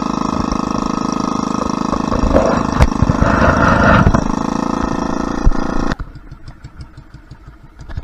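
Small fishing boat's engine running steadily, growing louder with a rougher rushing noise about two to four seconds in. It stops abruptly about six seconds in, leaving only faint scattered knocks.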